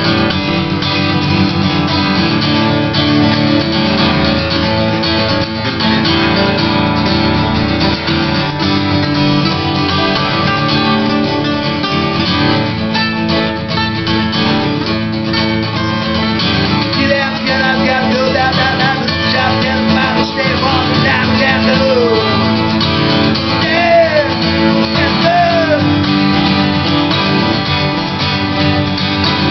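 Two acoustic guitars playing together: a 1957 Martin 00-17 playing lead lines over a 1985 Martin HD-28. Bent notes slide in pitch in the second half.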